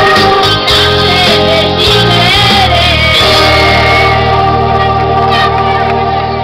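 Karaoke backing track played loud through a PA, with women singing along into microphones over sustained bass notes.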